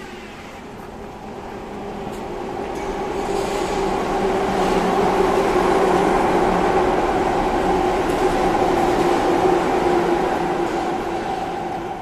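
Electric train passing on the elevated viaduct overhead: a steady rumble with a held two-note hum, building up over the first few seconds, loudest in the middle, then slowly fading.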